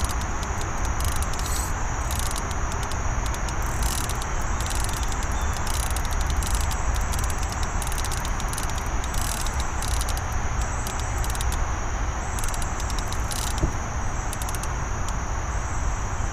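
Night insects calling in a continuous chorus, a steady high trill with faster pulsing over it, above a steady low rumble.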